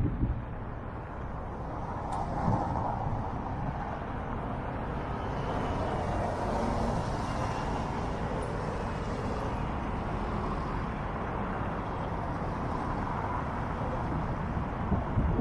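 Road traffic: cars passing, a steady rush of tyre and engine noise that swells a little in the middle. A brief knock at the very start.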